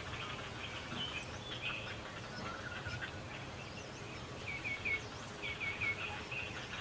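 Small birds giving short, high chirping calls over a steady outdoor background hiss, with two quick runs of three notes each about two-thirds of the way in.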